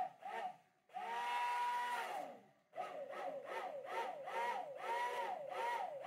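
Electric stick blender whirring in a glass jug, emulsifying the hot oil and water phases of a BTMS hair conditioner. It runs in bursts: a steady whine that sinks away after about a second, a short stop, then a whine whose pitch swings down and back up about twice a second.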